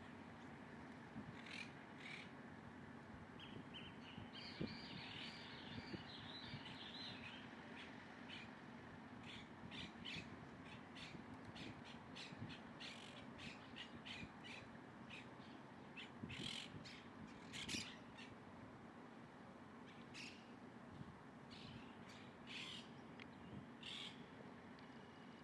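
Faint outdoor ambience with many short, scattered bird calls and chirps, a denser burst of chatter about four to seven seconds in, over a steady low hum.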